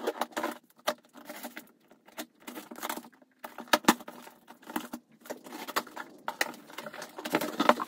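A cardboard box being cut open with scissors: the blade scraping and slitting through packing tape, with tape tearing and cardboard rustling in irregular scratchy bursts and clicks.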